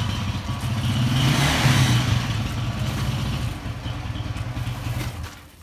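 Motorcycle engine running close by, a steady low drone that swells about two seconds in and drops away near the end.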